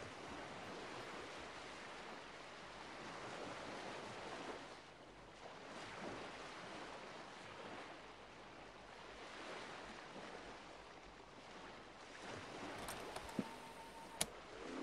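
Faint rushing hiss that swells and fades every few seconds, with a few sharp taps near the end from an Apple Pencil tip striking the iPad's glass screen.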